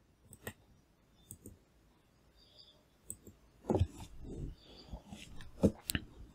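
Computer mouse clicking several times at irregular intervals, the loudest clicks coming a little past halfway and near the end.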